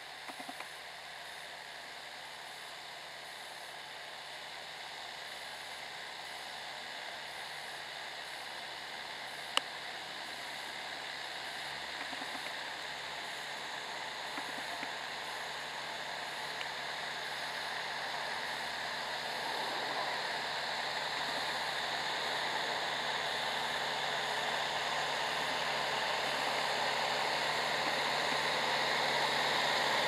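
John Deere 6320 tractor's diesel engine working under load as it pulls a four-furrow plough through the soil, growing steadily louder as it approaches. There is a single sharp click about ten seconds in.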